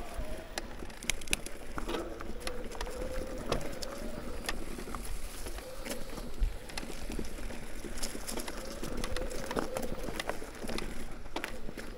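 Mountain bike rolling along a dirt trail: many sharp rattles and clicks as it goes over bumps, a faint hum that rises and falls, and wind rumbling on the microphone.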